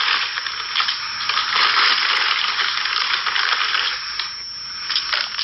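Dense crackling, crunching noise with many small clicks running through it.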